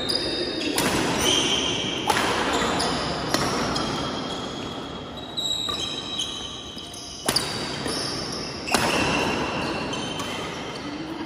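Badminton rackets striking a shuttlecock six times, roughly every one to two seconds, during a doubles rally, with sneakers squeaking on the court floor between the hits. The hits echo in a large hall.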